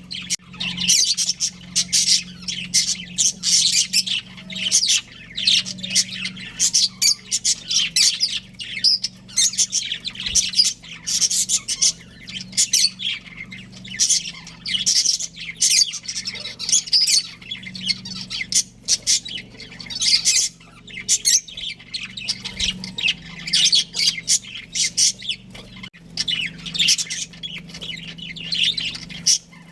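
Budgerigars chirping continuously in quick, overlapping high calls, over a faint steady low hum.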